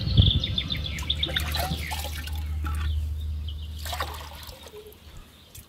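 Liquid poured from a small bowl into a pot, splashing and trickling, tailing off about four seconds in. Birds chirp near the start.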